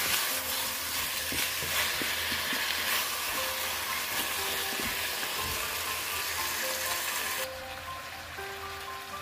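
Chicken, potatoes and peppers sizzling in a hot enamelled cast-iron pan while a wooden spatula stirs them, with scraping knocks against the pan. The sizzle drops sharply about seven and a half seconds in.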